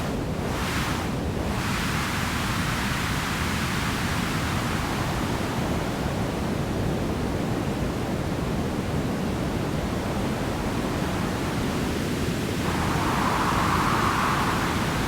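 Synthesized white noise from Ableton's Operator, run through a band-pass filter, giving a steady, loud hiss. Near the end a mid-pitched band of the hiss abruptly grows louder, as the filter setting changes.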